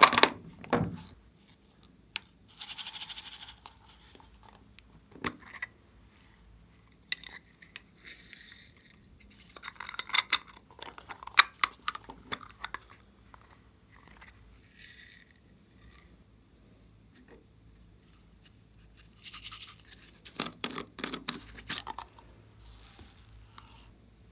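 Small plastic containers handled with sharp clicks and taps, and foam beads and star glitter shaken out of them onto slime in several short hissing, rattling pours.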